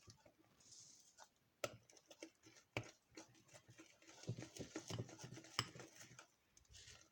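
Faint sticky clicking and soft patter of fluffy slime (glue, shaving foam and liquid detergent) being mixed by hand, with a few sharp clicks.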